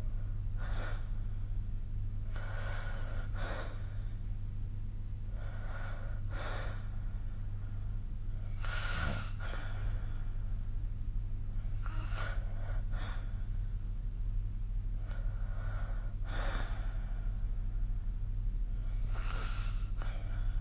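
A sleeping person snoring. Each breath comes as an airy pair, recurring roughly every three and a half seconds, about six times, over a steady low hum.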